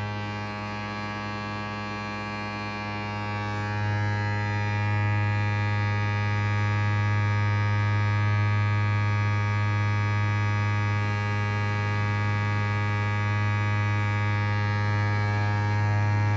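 Steady electric hum from a running appliance motor, a strong low tone with many overtones, dipping slightly at first and coming back up about four seconds in.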